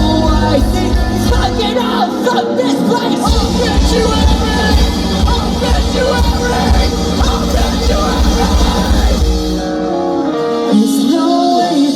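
Live rock band playing loudly, with singing. About ten seconds in, the heavy bass and drums drop out and leave the higher instruments and voice.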